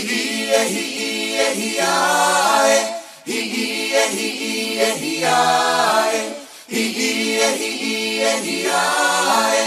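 Background music of a group of voices singing together in harmony. It starts suddenly and goes in phrases a few seconds long, with short breaths between them.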